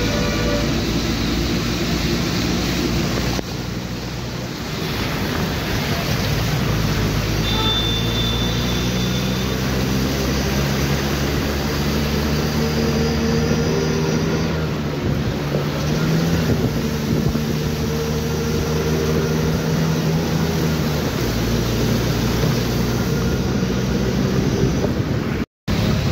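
Engine of the vehicle carrying the recorder, running and slowly rising and falling in pitch as it drives, under a steady hiss of rain, wet road and wind. The sound cuts out for an instant near the end.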